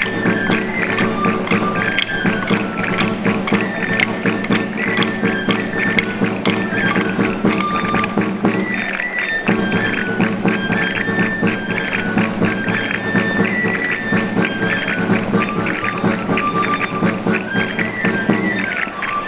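Traditional Charro folk music: a high, stepwise pipe melody over fast, even drum strokes and a steady low accompaniment, with a brief break in the low part about nine seconds in.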